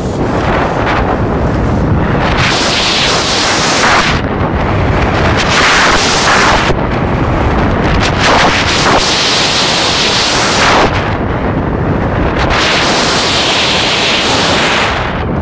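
Wind buffeting the microphone in a loud, continuous rumble during a fast run down a ski slope, with four long surges of hiss from edges scraping over the packed snow.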